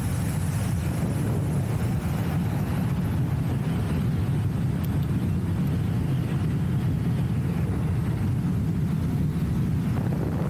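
Steady low rumble of wind buffeting the microphone of a camera carried on a Gotway RS HS electric unicycle ridden at speed.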